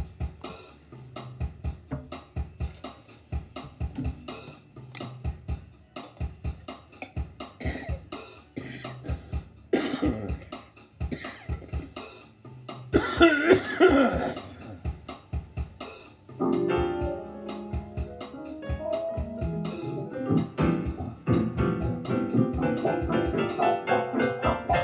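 Background music with a steady drum beat; about two-thirds of the way in, sustained held chords join the beat.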